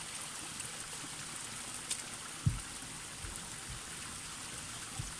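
Thin spring of water trickling and splashing down a mossy rock face, a steady hiss. A few dull low thumps come through it, the loudest about halfway through.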